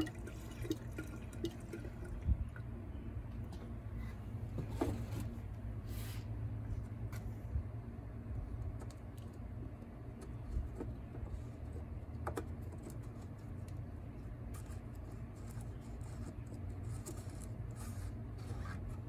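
Gasoline pouring from a can's spout into the fuel tank of a two-stroke cut-off saw, with a few light knocks as the spout and filler cap are handled, over a steady low hum.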